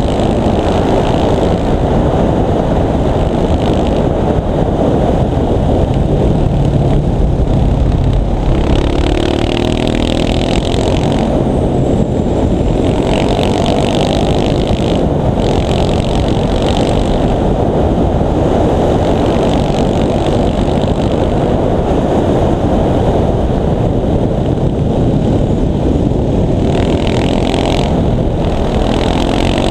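KTM 690 SMC supermoto's single-cylinder four-stroke engine pulling the bike along at road speed, heard from a helmet-mounted camera under heavy wind noise. The engine pitch rises about a third of the way in and again near the end as the rider accelerates.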